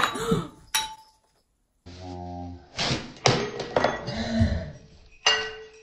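Knocks and clatter of things on a tabletop, ending about five seconds in with a sharp clink that rings briefly: a drink of wine being knocked over and spilled.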